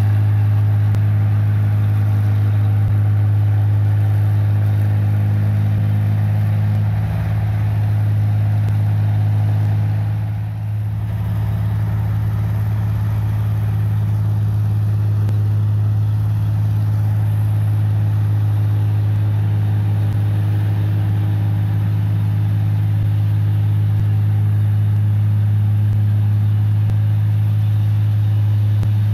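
1545 tracked combine harvester's diesel engine and machinery running steadily as it harvests a wet paddy field, a deep, even drone that dips briefly about seven and again about ten seconds in.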